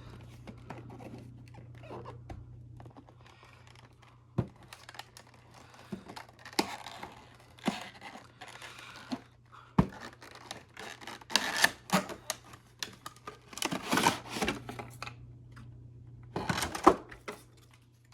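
Cardboard box and plastic packaging of a diecast model airplane being handled and opened: irregular rustling, scraping and sharp clicks, busier and louder in the second half, over a faint steady low hum.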